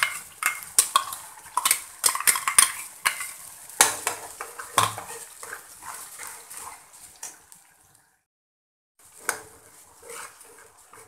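A metal spoon clinks and scrapes against a steel bowl and the kadai rim as spinach purée is knocked out into the pan: a quick run of sharp clinks over the first few seconds. Then a spatula stirs the purée in the pan with softer scraping and a light sizzle. The sound breaks off for about a second near the end.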